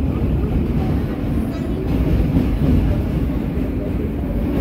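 New York City subway train running at speed, heard from inside the car: a steady, loud low rumble of wheels on the rails.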